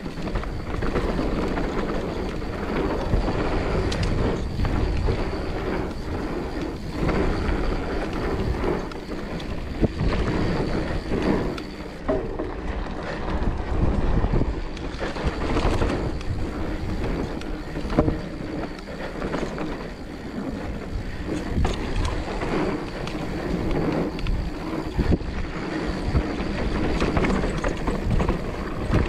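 Mountain bike rolling fast down a dirt trail: steady tyre rumble on packed dirt with wind buffeting the microphone, and a few sharp knocks from the bike hitting bumps.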